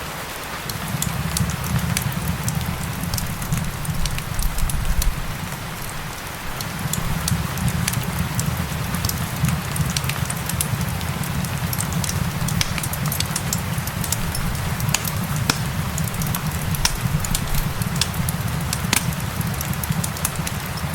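Fireplace fire crackling, with frequent sharp pops over a low steady rumble, mixed with the steady hiss of gentle rain.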